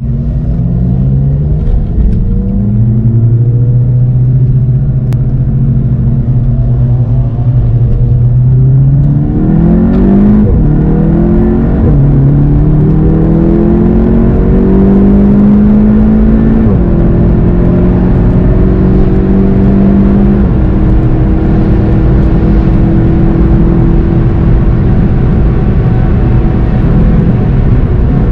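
Volkswagen Golf 7 GTI TCR's turbocharged four-cylinder engine under hard acceleration, its pitch climbing and then dropping back at each upshift, several times through the gears, before it holds high revs near the end.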